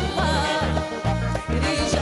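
Live Moroccan orchestral music: an instrumental passage with a wavering violin melody over a pulsing bass line.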